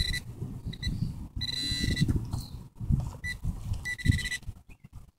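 A metal detector sounding a steady high beep in several short bursts, up to about a second each, the signal that metal lies under the detector. Beneath it, the rustle and scrape of hands digging through wood-chip mulch.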